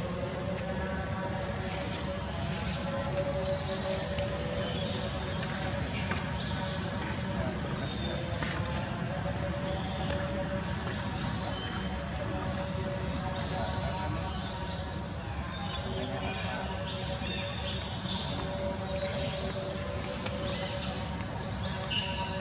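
Steady, high-pitched insect chorus droning without a break, with two brief sharp sounds, one about six seconds in and one near the end.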